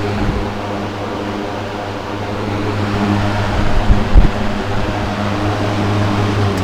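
Mid-1970s Manning Bowman three-speed box fan running on high: a steady rush of air over the hum of its electric motor, at a high RPM. A couple of brief low thumps come about four seconds in.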